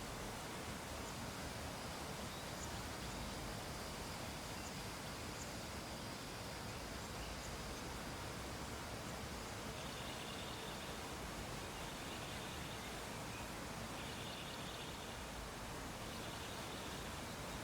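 Steady background hiss, with faint high-pitched tones coming and going in the second half.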